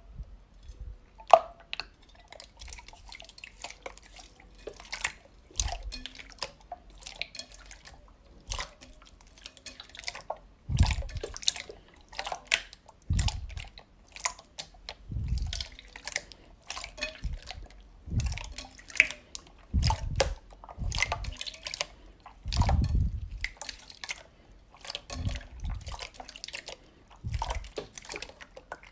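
Slime being squeezed and worked by hand, making wet clicking and popping sounds, with a soft low squelch about every two seconds.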